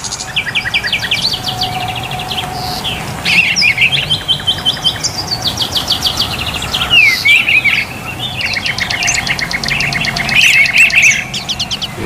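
Several caged songbirds chirping and trilling at once, in fast runs of high repeated notes and quick up-and-down whistles that overlap throughout.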